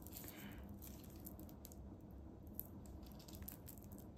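Faint crinkling and rustling of plastic raffia tape being worked with a crochet hook, with scattered small ticks.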